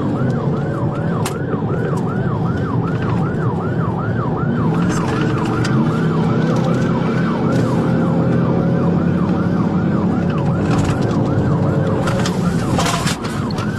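Police car siren on a fast yelp, rising and falling about three times a second, over steady engine and road noise from a vehicle at speed in a pursuit.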